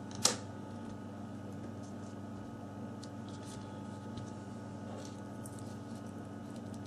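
Steady low electrical hum, with one sharp click about a quarter second in and faint light ticks of small parts and tools being handled.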